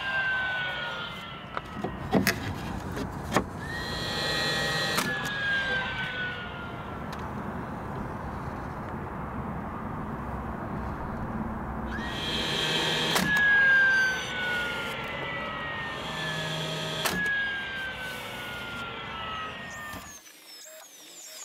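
DeWalt cordless brad nailer firing nails into plywood drawer faces, several sharp shots, each followed by a whine that falls in pitch as the motor winds down. This happens about four times.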